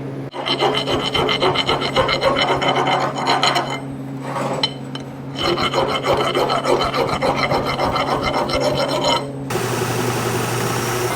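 Arc welding on the steel quick coupler frame: the arc crackles steadily in two long runs, with a pause of a second or two between them.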